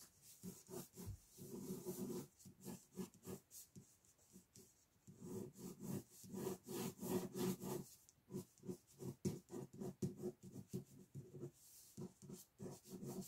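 Ballpoint pen scratching on sketchbook paper in quick, repeated sketching strokes, faint, with busier spells of scribbling.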